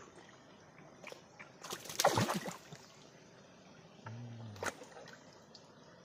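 Water splashing and sloshing, with one louder splash about two seconds in.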